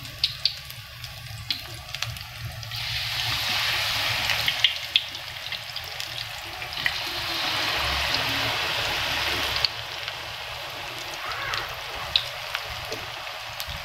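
Battered cassava strips deep-frying in hot oil in a steel wok: a steady sizzle with scattered sharp pops and crackles. The sizzle swells about three seconds in and drops back near the ten-second mark.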